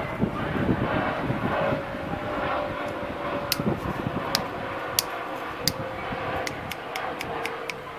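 A steady mechanical drone, like a distant engine, with a hum that slowly falls in pitch. From about three and a half seconds in, about a dozen sharp, short clicks.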